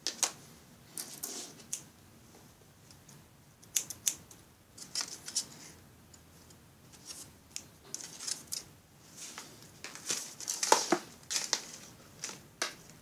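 Scissors cutting a waterproof 5050 RGB LED strip off its plastic reel: irregular snips and clicks, the loudest cluster late on, with the strip and reel rustling as they are handled.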